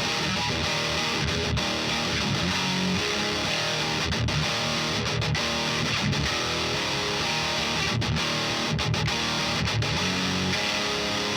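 Distorted electric guitar played through a Diezel VH4 preamp pedal, riffing on low chugging notes and chords with a few very brief stops.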